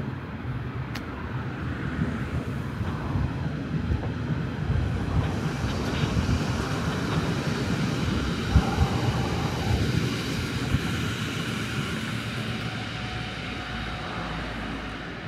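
A train passing on the rail tracks: a rumble with a hiss over it that builds over the first few seconds, holds, and fades near the end.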